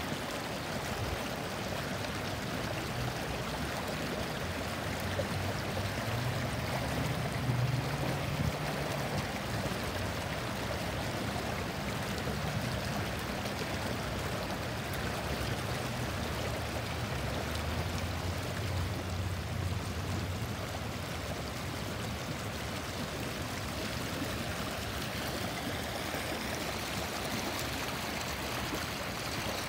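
Water pouring in a smooth sheet over a low weir and churning into white water below: a steady, even rush with no breaks.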